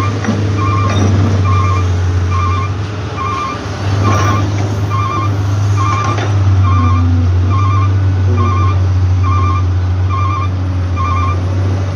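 Heavy diesel engine running steadily under a back-up alarm that beeps about once every second, each beep a short warbling pulse. A few dull knocks from the machine's work.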